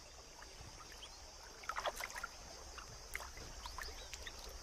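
Faint water sounds of an elephant wading and drinking in a shallow waterhole: light sloshing and scattered small drips and plinks.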